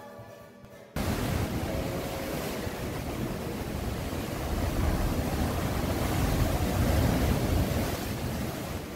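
Heavy surf breaking against rocks and pouring back over rock ledges: a loud rushing wash that cuts in suddenly about a second in, swells twice and eases near the end.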